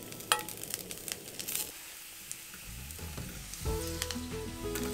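Garlic and sliced sausage frying in hot oil in a frying pan: a steady crackling sizzle, with one sharp metallic clink shortly after the start as the tongs touch the pan. Background music comes in about three and a half seconds in.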